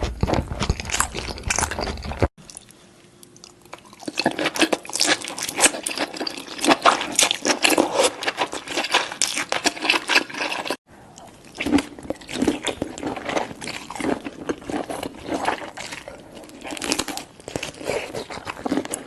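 Close-miked chewing and crunching of seafood, a dense run of wet crackles and bites. It breaks off abruptly twice, about two seconds in and again near the middle.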